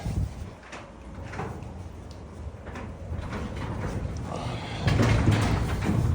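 Sectional garage door being pulled down by hand, its rollers and panels clattering and knocking in the tracks. It rumbles louder over the last second or so.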